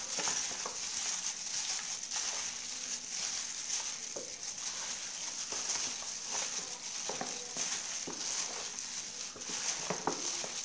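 Raw chicken drumsticks being tossed by hand in marinade in a plastic basin: thin plastic food gloves crinkle, and the wet meat squelches and knocks against the basin in irregular handling noises. A steady high hiss runs underneath.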